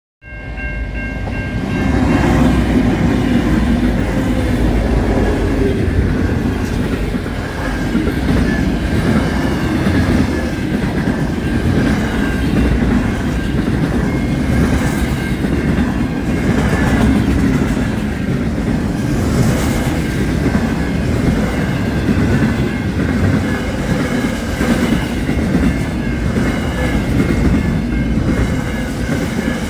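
Aurizon intermodal freight train rolling through a level crossing: a loud steady rumble and clatter of wagon wheels on the rails. A set of steady high tones sounds at the start and again from about halfway.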